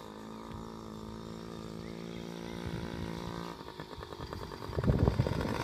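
Small Yamaha kids' dirt bike engine buzzing steadily. About three and a half seconds in it turns to a rapid, uneven pulsing that grows louder toward the end.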